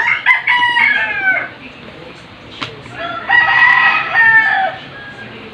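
A rooster crowing twice, each crow a long call that falls in pitch at the end. A single sharp click comes between the two crows.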